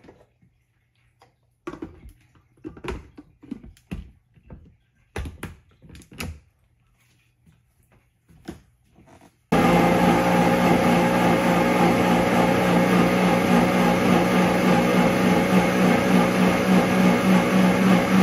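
A few light knocks and clatter, then about nine seconds in a countertop blender motor starts suddenly and runs steadily and loudly, grinding chopped fresh coconut with water and milk.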